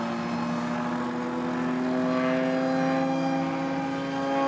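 Radio-control model airplane's engine running steadily, its pitch creeping slowly upward.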